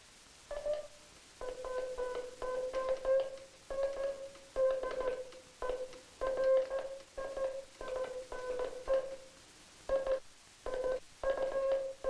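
Morse code sent on a J38 straight hand key: a steady tone keyed on and off in dits and dahs of uneven length, with irregular spacing. The dahs are cut short and the spacing is erratic, the sending that comes from a key with its gap too wide or its spring too tight.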